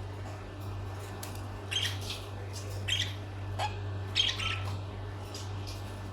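Lovebirds giving short, sharp squawks and chirps, several scattered calls with a small cluster about four seconds in, over a steady low hum.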